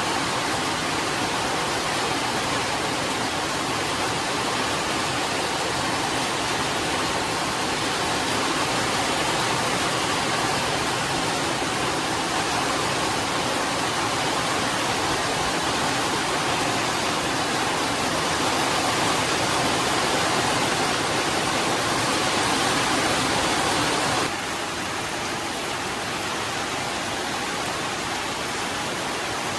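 Heavy rain falling steadily as a dense, even hiss. About 24 seconds in it drops suddenly to a slightly quieter downpour.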